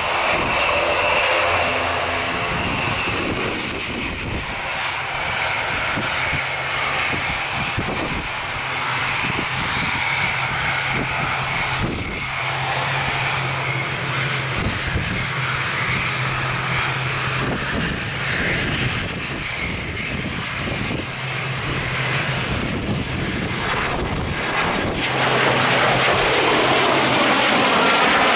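Cessna Citation CJ3 business jet's twin turbofan engines at takeoff power, a steady loud rushing jet noise. A high whine comes in about three quarters of the way through and slowly drops in pitch as the sound grows louder near the end.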